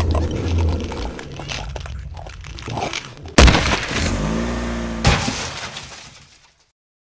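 Cartoon crash sound effects: a sharp smash about halfway through, the loudest moment, then a second hit less than two seconds later, fading out near the end.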